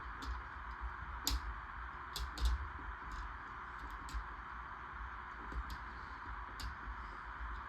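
Plastic LEGO Technic pieces clicking and tapping as they are handled and fitted together, about nine sharp, irregular clicks over a steady background hiss.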